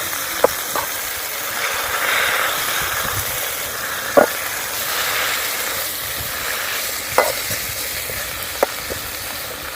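Thoothuvalai leaves, onions, garlic and tomato sizzling in a little oil in a pan as they are stirred: a steady frying hiss, with a few sharp clinks of the stirring utensil against the pan.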